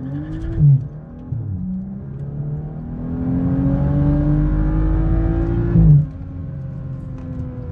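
BMW 435i's turbocharged inline-six, fitted with an aftermarket downpipe and JB4 tune, revving on a brake boost and then accelerating hard in first gear, its note climbing steadily for a few seconds. A short loud burst comes about a second in and another near the end of the climb, after which the note drops lower as the car upshifts.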